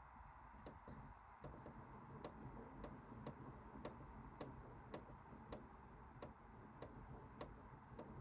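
Toy Bosch Logixx 8 washing machine running faintly, its mechanism giving off regular sharp ticks a bit under two a second over a low hum.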